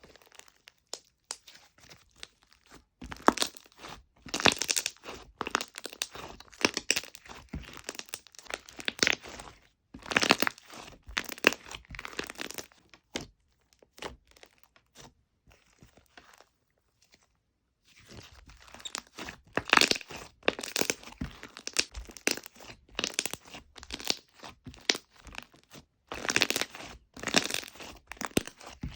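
Fluffy slime being squeezed, poked and stretched by hand, giving runs of sticky crackling and popping clicks. The crackling comes in bursts and goes nearly quiet for a few seconds about halfway through.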